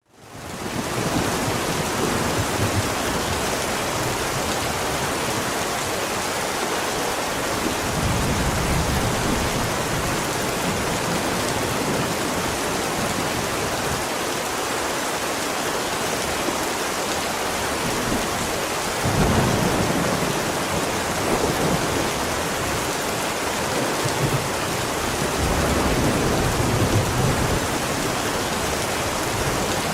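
Heavy downpour of rain, a steady hiss, fading in at the start, with thunder rumbling low several times; the loudest rumble comes about two-thirds of the way through.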